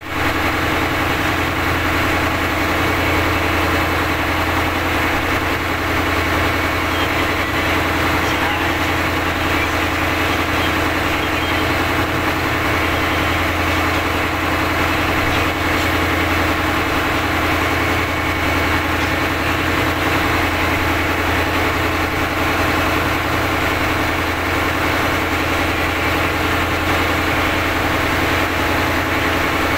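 A fishing boat's inboard engine running steadily under way, towing a disabled purse seiner. It is a constant low drone heard from on deck, with an even hiss of wind and sea over it.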